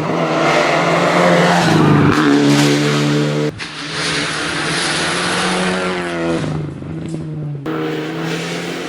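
Rally car engine at high revs as the car passes, pitch rising hard under acceleration and later dropping as it slows, with abrupt changes where clips are joined.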